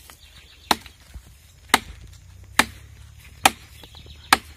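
Dry lemon-tree wood being struck to break it up for firewood: five sharp wooden whacks, evenly spaced a little under a second apart.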